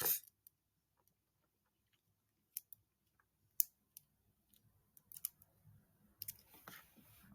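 Quiet room with a few faint, scattered clicks and small handling noises.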